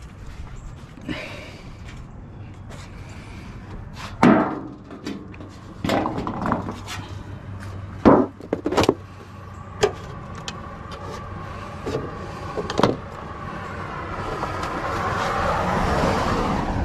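Scattered knocks and clunks of scrap being handled, a few of them sharp bangs. Near the end a vehicle approaches and passes, growing louder.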